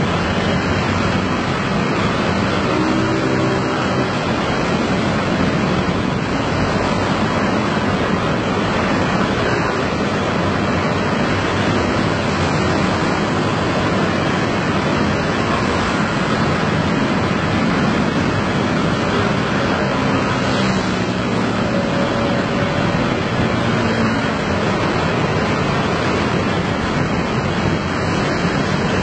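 Massed engines of a dense stream of motor scooters riding past close by, a steady wash of engine and traffic noise with faint engine hums rising and fading as nearer scooters pass.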